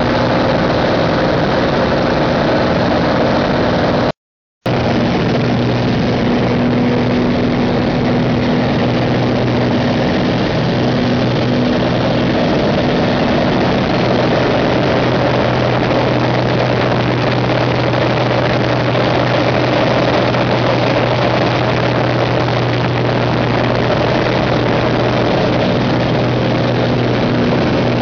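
Pitts S-2B's six-cylinder Lycoming engine and propeller drone steadily in flight, heard from the open cockpit with heavy wind rush. The sound drops out completely for under half a second about four seconds in.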